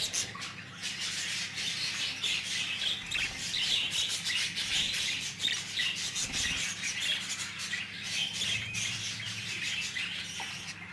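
A group of budgerigars chirping and chattering, with many short high chirps running on without pause.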